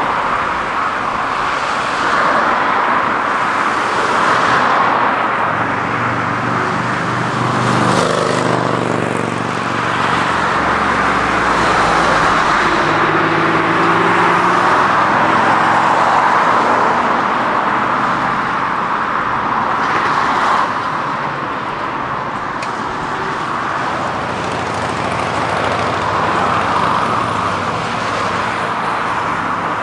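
Road traffic on a multi-lane road: a steady rush of car tyres passing. About eight seconds in, one vehicle's engine hum comes through for several seconds, shifting in pitch as it pulls past.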